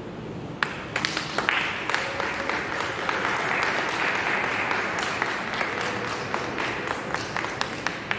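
A small gathering applauding: a few sharp claps about half a second in, then sustained clapping.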